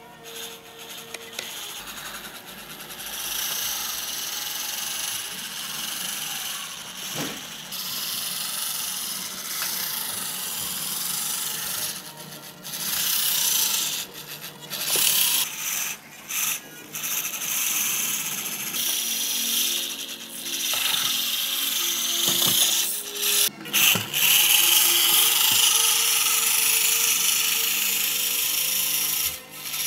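Losi Micro Rock Crawler's small electric motor and geartrain whirring as it drives, stopping and starting again and again with short breaks in the second half.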